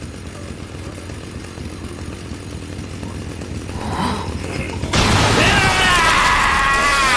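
Low rumble building, then about five seconds in a chainsaw engine sound effect bursts in loudly, its high whine wavering in pitch.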